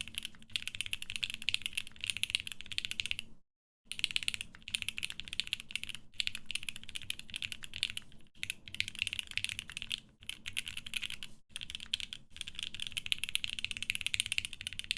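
Fast continuous typing on a Geonworks F1-8X mechanical keyboard: a dense clatter of switch and keycap clicks, with a brief break about three and a half seconds in.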